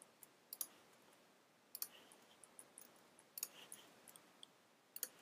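Faint computer mouse-button clicks, several quick press-and-release pairs about a second or so apart, with lighter ticks between.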